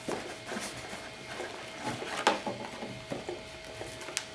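Handling noises: scattered light clicks and knocks of small parts being handled while an accessory is fitted to an RC boat. The loudest knock comes about two seconds in and a sharp click near the end, over a faint steady hum.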